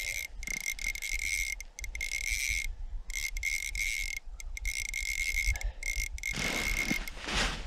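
Ice-fishing reel whirring with a thin high whine, in runs broken by short pauses, as a hooked crappie is cranked up through the hole. Wind rumbles on the microphone throughout, with a louder rush near the end.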